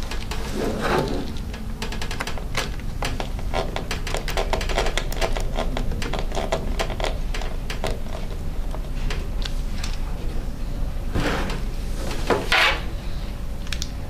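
Quick small clicks and scrapes of a hand screwdriver driving small screws back into the plastic base of an HP Mini 5103 netbook. Near the end come a couple of louder scuffs as the laptop is turned and set down on the wooden table.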